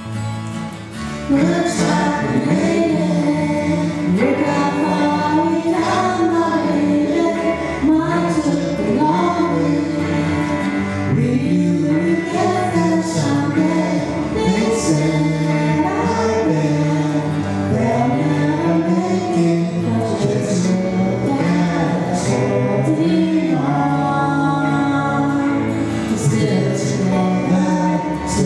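Live band music: a woman singing lead over strummed acoustic guitars, electric guitar and electric bass. The singing and full band come in about a second in, and the level stays up from there.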